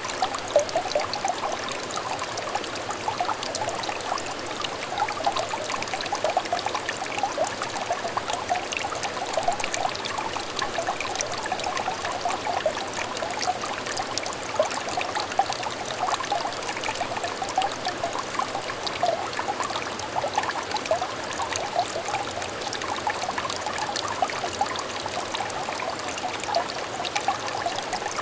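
Small clear stream trickling over stones, a steady babbling with many small bubbling splashes.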